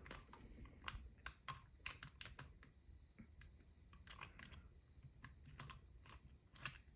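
Faint, irregular small metallic clicks and taps as a padlock and a lock tool are handled during disassembly.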